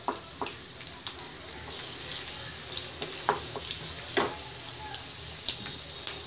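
Chopped garlic, cumin and mustard seeds sizzling in hot oil in a kadai, a steady high hiss. A wooden spatula stirs and scrapes against the pan, with a few sharp clicks and pops along the way.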